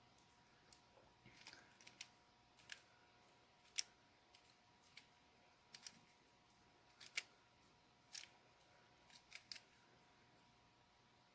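Plastic 'pancake' twisty puzzle being turned by hand at speed: irregular sharp clicks of its layers snapping round, some in quick pairs or triples with short pauses between.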